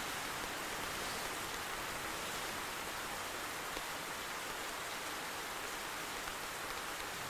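Steady rain falling on a flat rooftop and on a clear plastic umbrella.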